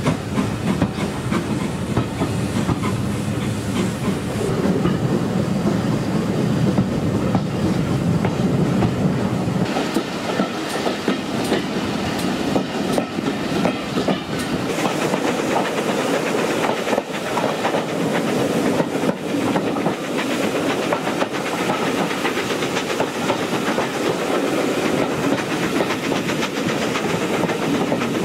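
Railway carriages running along the track, heard from aboard the train: a steady rumble with the clickety-clack of wheels over the rails. About ten seconds in the deep rumble drops away and the sharp wheel clicks come to the fore.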